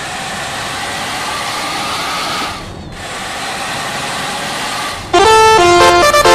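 Steady road noise of a passing vehicle. About five seconds in, a loud telolet 'basuri' musical bus horn starts playing a melody of quick stepped notes.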